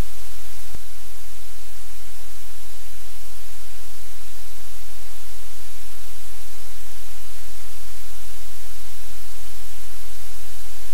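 Steady, loud hiss of static with a low hum underneath, with a single click about three-quarters of a second in.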